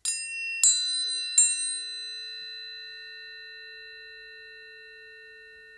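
Planetary tuning forks struck three times in quick succession. They ring on together in several steady, pure tones that slowly fade.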